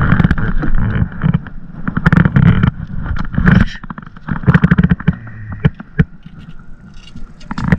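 Strong wind buffeting the microphone in gusts, with scattered sharp clicks and knocks, clustered about halfway through, while a hooked fish is brought in beside a kayak.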